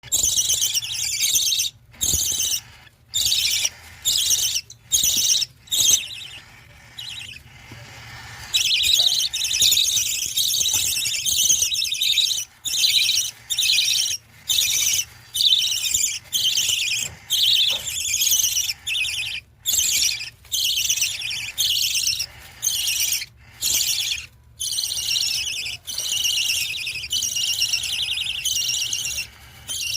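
Budgie chicks chirping in a continuous high, rapid chatter. The chatter comes in bursts of a second or two with brief breaks, and is quieter for a couple of seconds early on.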